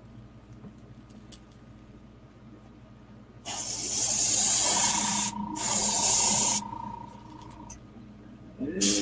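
Iwata HP-CS airbrush spraying: a hiss of air and paint that starts about halfway in and cuts off twice, with a brief break after a second or so and a longer pause after it, then starts again just at the end.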